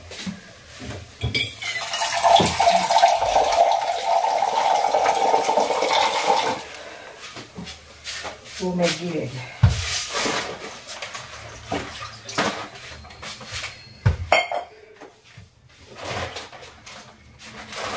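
Water pouring steadily for about four seconds, starting about two seconds in, followed by clinks and knocks of steel kitchen utensils and pans.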